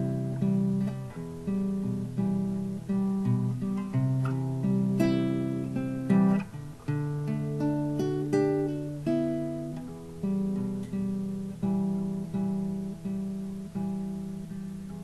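Nylon-string classical guitar played with the fingers: plucked chords and bass notes, about one or two a second, each ringing out and fading before the next.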